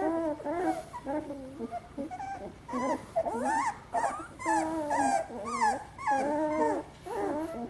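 Beagle puppies whining and whimpering, a string of short cries that waver and bend in pitch, one after another.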